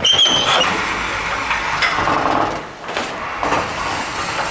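Aluminum sliding door panel rolling along its rail on newly fitted bearing rollers, a steady rolling rumble that dips briefly near the middle. A short high squeak comes right at the start.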